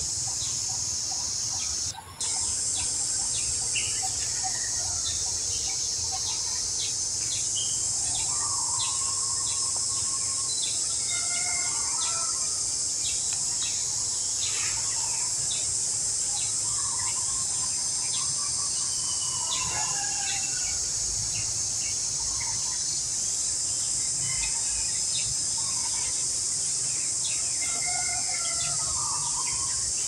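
Steady high-pitched insect drone with scattered short bird chirps and whistled calls over it. The sound cuts out for a moment about two seconds in.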